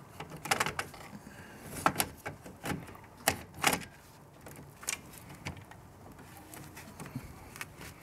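Sharp plastic clicks and knocks of a replacement circuit breaker being handled and pushed into place in a breaker panel, with glove and cable handling noise. The clicks come irregularly, most of them in the first five or six seconds.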